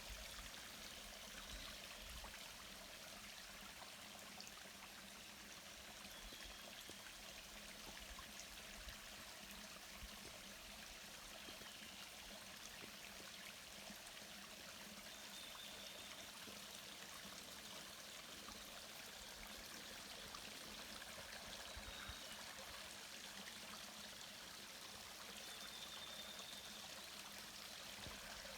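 Mountain stream flowing over rocks: a steady, faint rush of water, with a few brief high chirps here and there.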